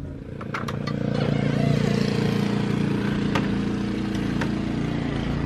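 Gas snowblower engine running steadily, getting louder over the first second or so, with a few sharp clicks over it.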